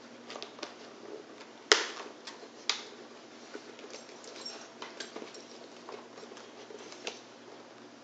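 Hands working a motorcycle helmet's cheek pad back into place: light scuffing of padding and plastic, with scattered sharp clicks as the pad's snap fasteners are pressed into the shell, the loudest a little under two seconds in and another about a second later.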